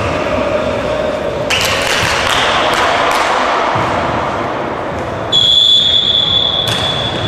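Volleyballs being hit and caught during a warm-up in a large gym hall, giving several sharp thuds. About five seconds in, a steady high-pitched tone starts and holds for about two seconds.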